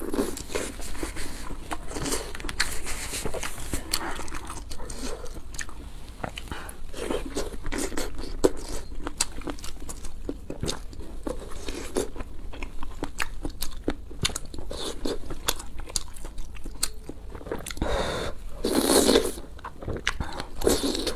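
Close-miked eating sounds: wet chewing and mouth clicks from a mouthful of noodle soup, with a louder noodle slurp near the end.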